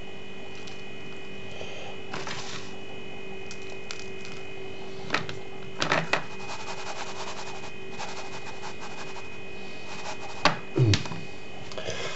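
A steady electrical hum under a few light clicks and taps of the coffee grinder being handled: one about five seconds in, a cluster around six seconds with fine ticking after it, and another pair near eleven seconds. The grinder motor is not running.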